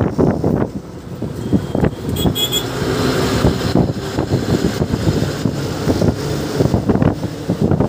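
Road traffic, with vehicle engines and tyre noise, and wind buffeting the microphone while moving along a city road. There is a brief higher-pitched sound a little over two seconds in.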